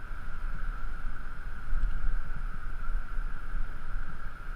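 Wind buffeting a body-worn camera's microphone high on a building face: an uneven low rumble with a steady hiss above it.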